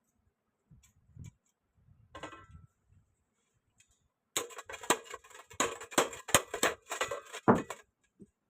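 A few soft clicks, then a dense run of sharp clattering and rattling for about three seconds from halfway through: hard fan parts being handled during the repair.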